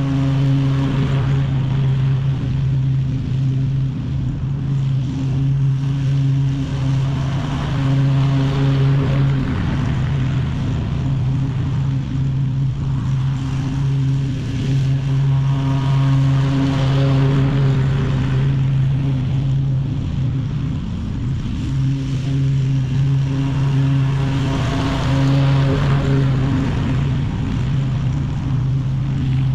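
Walk-behind lawn mower engine running steadily while cutting overgrown grass, a constant low drone that wavers briefly a couple of times.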